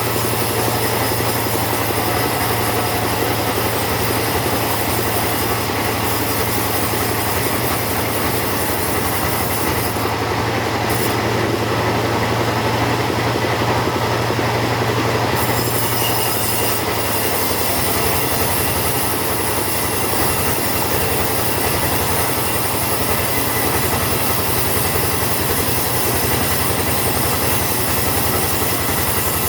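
Chainsaw running steadily under load while it cuts through a teak log; about halfway through, the engine note changes.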